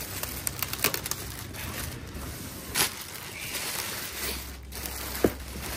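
Black plastic bag wrapping crinkling and rustling as it is pulled and bunched off a box by hand, with a louder crackle about halfway through and a sharp snap near the end.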